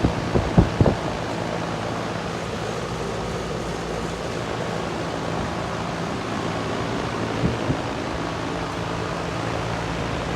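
4-ton Lennox Merit 14 SEER heat pump outdoor unit running in heat mode: a steady whoosh from the outdoor fan over a low, even compressor hum. A few low thumps sound in the first second.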